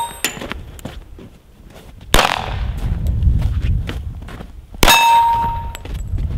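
Gunfire at steel targets: a sharp shot about two seconds in, then another sharp report near five seconds in with a steel plate clanging and ringing on one steady tone for about a second.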